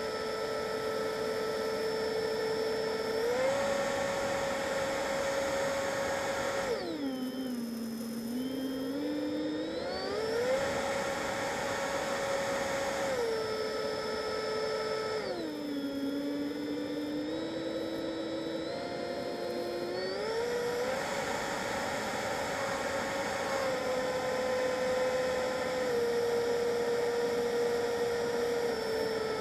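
Freewing F-22 RC jet's electric ducted fan whining steadily over a hiss, heard from its onboard camera. The pitch drops sharply about seven seconds in and again around fifteen seconds as the throttle is pulled back, then climbs again each time as it is opened up.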